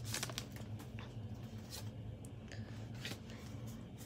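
Faint clicks and short rustles of Pokémon trading cards being handled and slid against each other while a freshly opened pack is looked through, over a low steady hum.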